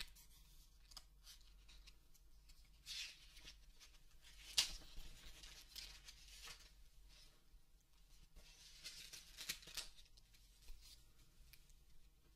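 Near silence: quiet room tone with a few faint, brief hissy noises and one sharp click about four and a half seconds in.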